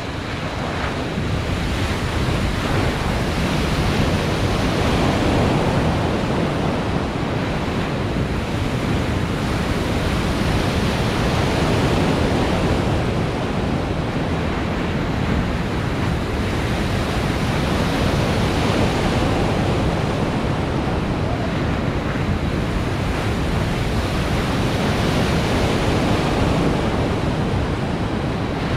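Water rushing and churning in a machine-made surf wave pool, with wind buffeting the microphone; the noise swells over the first couple of seconds and then stays steady.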